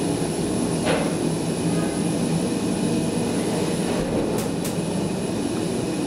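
Elevator car running, heard from inside the car: a steady drone with a low hum underneath, and a short click about a second in.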